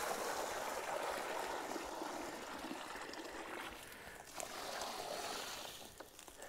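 Water poured from a white five-gallon plastic bucket into a shallow black pan, splashing steadily. It dips briefly about four seconds in, picks up again, and tails off near the end.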